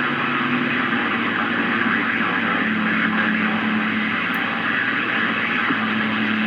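CB radio receiver on channel 28 putting out steady hiss and static between skip transmissions, with faint steady hum tones underneath.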